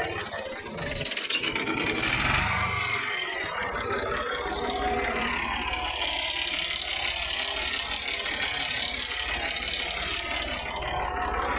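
Tractor engine running steadily, with a dense mechanical clatter over its low hum.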